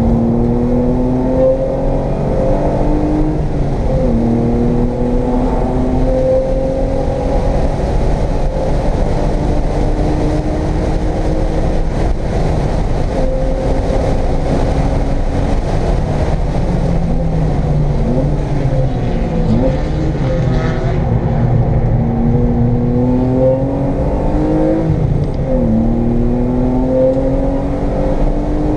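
1995 BMW M3's inline-six engine heard from inside the cabin, driven hard on track. The revs climb steadily through the gears, with a sharp drop at an upshift about four seconds in and another near the end. About two-thirds through, the revs fall and rise several times as the car slows and shifts down.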